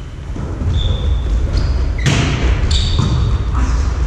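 A volleyball game in a reverberant sports hall: a volleyball struck sharply about two seconds in and again shortly after, with brief high squeaks of players' shoes on the wooden floor, over a steady low rumble.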